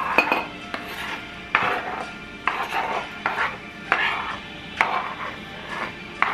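A kitchen knife chopping shallots on a wooden cutting board, with sharp, irregular knocks about once a second, some in quick pairs.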